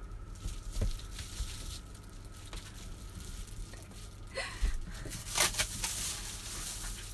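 Rustling and crinkling handling noise with a few small clicks, busiest about four to six seconds in.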